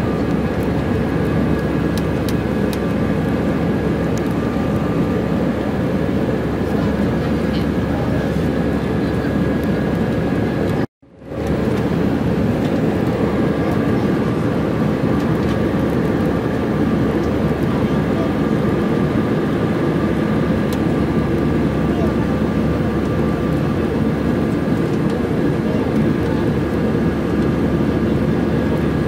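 Steady cabin noise of an Airbus A321-211 in flight, heard at a window seat over the wing: an even roar of airflow and its CFM56-5B engines, with faint steady tones on top. The sound cuts out abruptly for about half a second roughly eleven seconds in.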